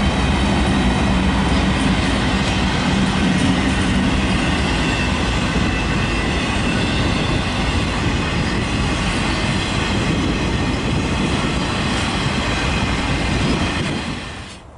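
Freight train rolling past at close range: a steady loud clatter of wheels on rail with a faint high squeal, cutting off abruptly near the end.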